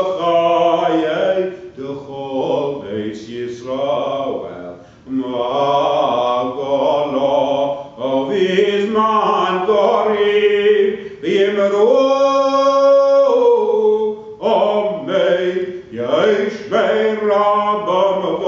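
A male cantor chanting Hebrew liturgy solo and unaccompanied, his voice sliding and turning between notes, with one long held note about two-thirds of the way through.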